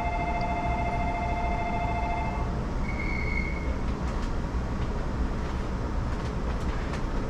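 Shonan Monorail car standing at the platform with a steady low hum. A steady electronic signal of several held tones stops about two and a half seconds in, followed by one short high beep and a few faint clicks.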